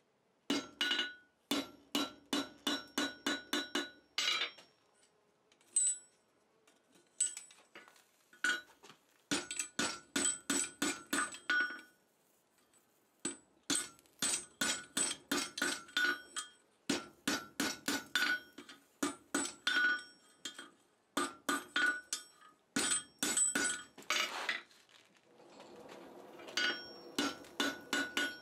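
Blacksmith's hammer striking a red-hot chain link of 3/8-inch round bar on the anvil face and horn, in quick runs of blows with short pauses between them; each blow rings. The blows bend and forge-weld the scarfed ends of the link.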